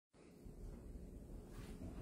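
Faint room tone: a low hum with a thin steady tone, no distinct event.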